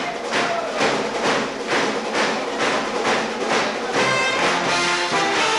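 1940s dance-band music: a steady percussive beat of about two and a half strokes a second, then a brass section comes in with held chords about four seconds in.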